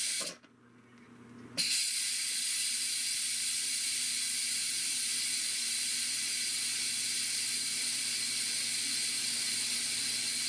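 Nesco electric pressure cooker venting steam in a quick pressure release: a short hiss that drops away right at the start, then about one and a half seconds in a steady, even hiss of escaping steam that holds to the end.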